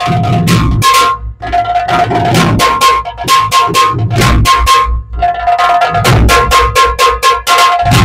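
Muharram dhol tasha drumming: fast, sharp tasha strokes over deep dhol beats in a loud, driving rhythm, with brief breaks in the pattern twice.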